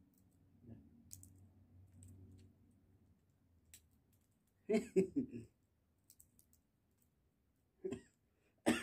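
Sunflower seed shells being cracked between the teeth and picked apart by the fingers: faint scattered clicks, a quick cluster of louder cracks about five seconds in, and two more near the end.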